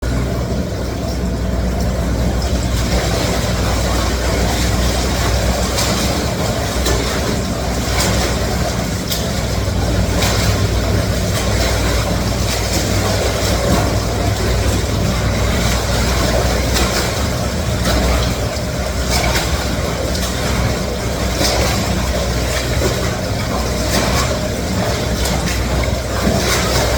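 Counter-current swim machine running at its top speed: a steady low motor hum under loud rushing, churning water, with irregular splashing from swimming strokes.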